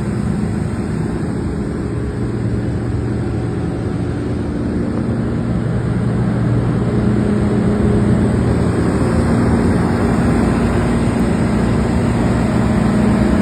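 John Deere combine harvester running steadily, a low, even engine drone that grows a little louder about halfway through.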